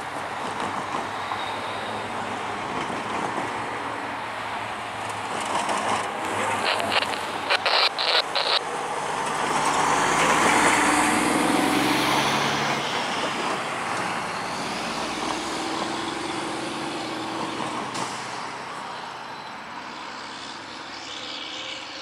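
Road vehicles passing over a railroad grade crossing: steady tyre and engine noise, with one vehicle swelling and fading about halfway through. A quick run of sharp clacks comes a few seconds before that.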